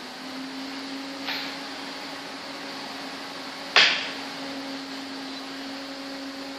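A steady low electrical hum, with two sharp clacks of play at a makruk board, a light one about a second in and a louder one a little under four seconds in.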